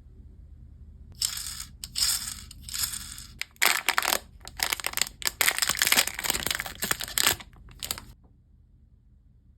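Packaging being handled and torn open by hand: a run of crinkling, crushing and tearing rustles starting about a second in and stopping about eight seconds in.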